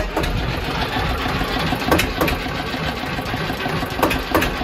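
Eicher 241 tractor's single-cylinder diesel engine idling steadily, with sharp clicks scattered through the running sound. The owners are trying to trace an unwanted noise from it.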